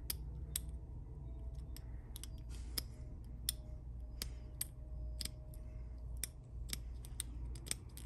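Small sharp metallic clicks, about two a second and irregular, from a shim being worked between the plug and shell of a rusty five-pin mortise lock cylinder as the plug is turned, with the pins snapping past one by one. The inside is gritty with rust, "pretty crunchy in there".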